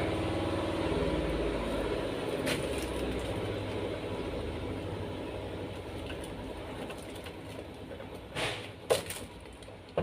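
Washing machine running with a steady, fast rhythmic rumble that slowly fades away, as its motor and spin drum coast down. Two sharp knocks follow near the end.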